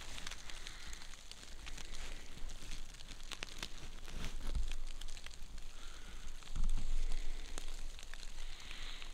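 Light snow pattering on tent fabric: many soft, scattered ticks over a steady hiss, with a couple of low rumbles partway through.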